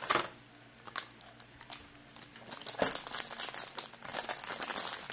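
Clear plastic packaging crinkling and crackling as hands pull and twist at it, trying to get it open. The crackles are sparse at first and come thick and fast over the second half.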